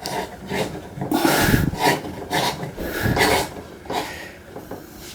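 Light bulb being twisted in its lamp socket: a run of rough rubbing and scraping sounds from the screw base turning in the holder, loudest in the middle.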